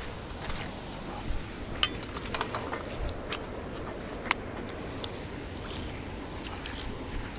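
Metal hooks and rigging clinking and knocking as they are handled in gloved hands: several sharp clinks, the loudest about two seconds in, and more near three and a half and four and a half seconds.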